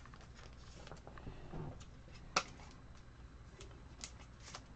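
Faint handling noises in a quiet small room: scattered light clicks and rustles, with one sharper click about two and a half seconds in.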